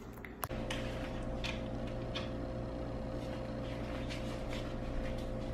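A steady electrical or mechanical hum with a thin constant tone, starting abruptly about half a second in, with a few faint light clicks over it.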